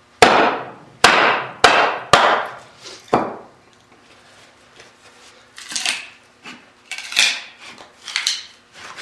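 Wooden froe club striking the spine of a steel froe five times in quick succession, driving the blade down into a green maple billet. After a short pause come softer, irregular cracks and knocks as the froe is levered to open the split and break the piece off.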